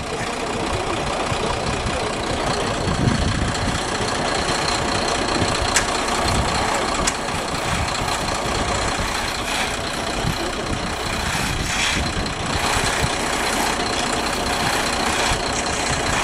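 An engine running steadily, with a few light knocks over it.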